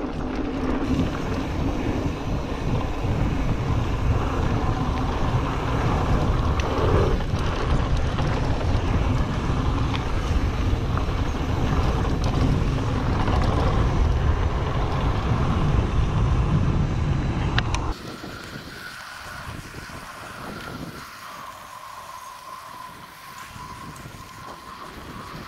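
Wind buffeting a GoPro Hero7's microphone and tyres rumbling over a dirt trail as a mountain bike rides downhill. About two-thirds of the way through, the rumble drops off suddenly to a much quieter hiss.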